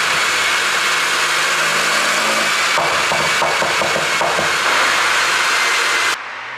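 BMW 330i's turbocharged four-cylinder running with a steady rushing exhaust note. About three seconds in comes a quick run of irregular crackles and pops lasting over a second, the overrun pops of an ECU pop-and-bang tune. The sound cuts off abruptly near the end.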